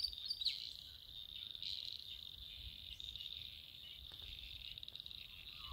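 Crickets chirring in a steady, high-pitched, pulsing drone, faint, with a few short chirps over it in the first couple of seconds.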